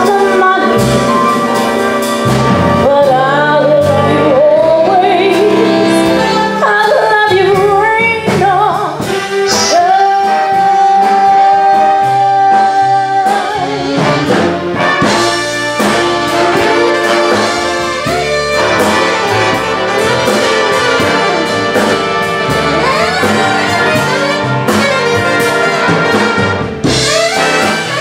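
Live big-band jazz: a female vocalist sings a ballad backed by trumpets, trombones and saxophones, holding one long note about ten seconds in.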